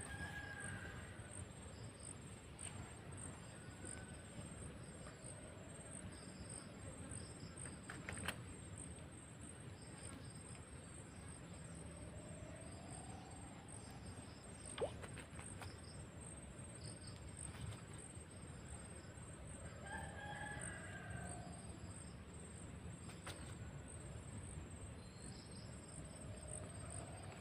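Faint rooster crowing several times over a steady high insect drone, with a few light clicks.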